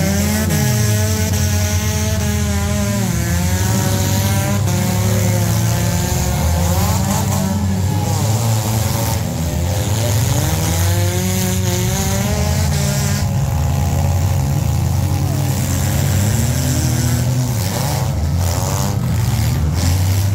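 Several stock compact car engines running and revving at once, their pitch repeatedly climbing and falling as the cars push and spin in the dirt.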